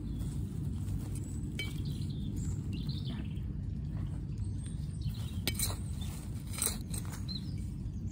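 Hand trowel digging into garden soil to dig out ground elder, with a number of short sharp scrapes and clinks as the blade hits grit and small stones, over a steady low background noise.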